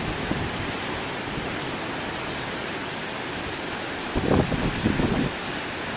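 Steady rushing noise of large waves breaking on the shore, with low gusts of wind buffeting the microphone about four seconds in.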